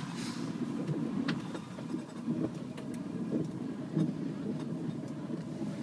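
Tow plane's propeller engine running at low power a short way ahead, heard from the glider's cockpit as a steady low drone.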